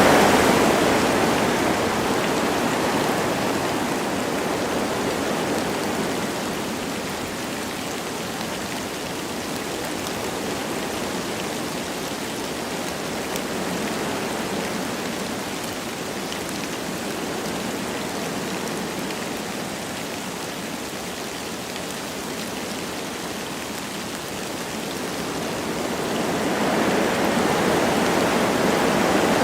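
Wind blowing through forest trees with light rain: a continuous rush that eases after the first few seconds and swells again near the end.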